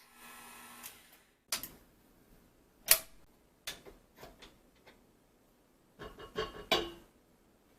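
Objects being handled and set down: a run of separate knocks and clicks, the loudest about three seconds in, then a quick cluster of clinks with a short ring near the end.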